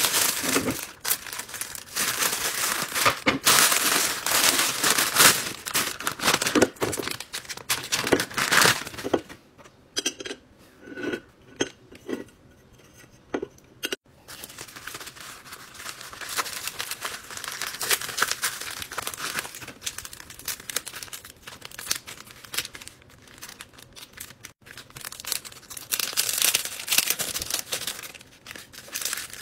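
Plastic poly mailer bag crinkling and tearing as it is handled and opened, loud and crackly for the first several seconds. A quieter stretch with a few taps follows, then steadier, softer crinkling of plastic packaging sleeves.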